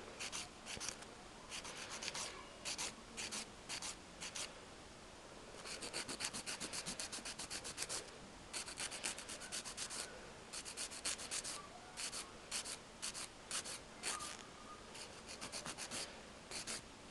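Hand nail file rasping back and forth over a gel nail in quick short strokes, several a second, in runs broken by brief pauses, filing down lifted gel to blend it away.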